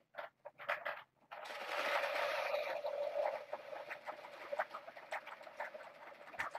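Plastic balls rolling and rattling round the tracks of a tiered ball-track cat toy: a few separate clicks, then a dense rattle that starts about a second in and slowly fades, with scattered clicks through it.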